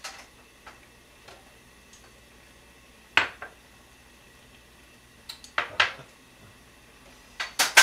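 Ceramic bowls being set down on a kitchen counter and chopsticks clinking against a bowl. There is a sharp clink about three seconds in, a few quick clinks around six seconds, and another pair near the end.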